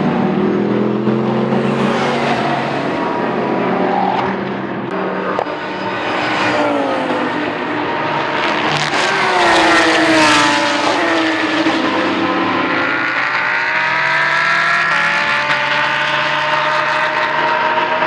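Several GT race cars pass one after another, their engines revving hard through gear changes, the pitch rising and falling as they come by. The loudest pass comes about halfway through, and near the end an engine pulls a long rising note as it accelerates.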